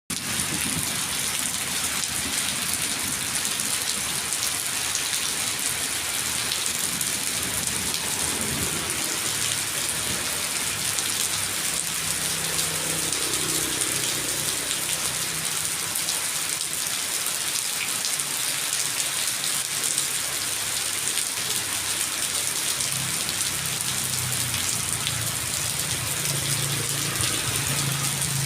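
Steady heavy rainfall, an even hiss.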